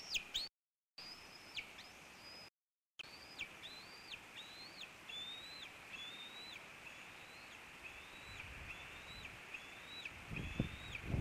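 Bald eagle nestling begging: a steady series of high cheeping calls, each rising and then dropping off sharply, about one every second or less, fading a little midway and strengthening again near the end. The audio cuts out twice briefly early on, and low thumps and rumbling come in near the end.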